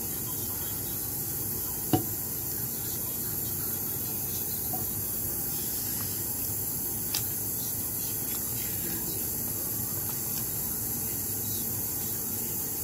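Wet slime being worked by hand after water has been added: faint squishing and sloshing over a steady hiss, with one sharp click about two seconds in.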